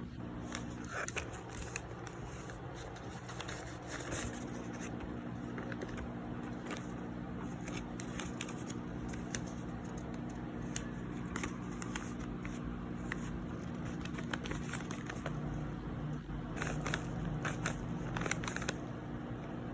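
Plastic blind-bag packaging crinkling and tearing as it is handled and opened: scattered crackles and rustles over a steady low hum.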